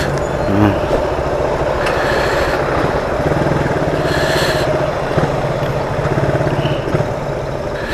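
Motorcycle engine running at low speed in slow traffic: a steady low hum with road and traffic noise around it.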